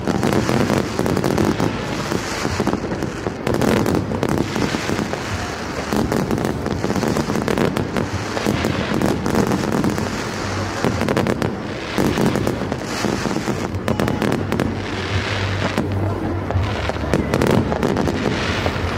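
Fireworks going off in quick succession: a continuous run of bangs and crackling from many shells bursting at once.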